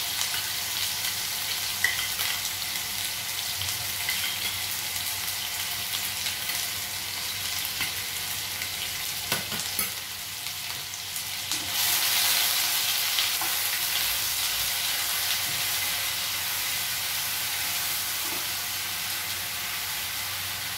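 Onion paste sizzling in hot mustard oil in a nonstick frying pan, a steady frying hiss that grows louder about twelve seconds in. Near the end a spatula stirs the paste around the pan.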